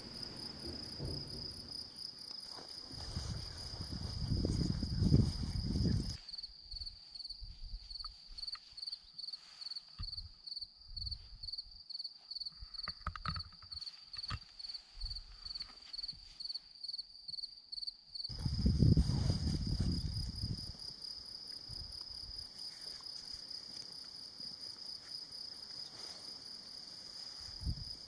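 Crickets trilling: a steady, fast-pulsing high-pitched chirr that never stops, with bursts of low rumble on the microphone twice.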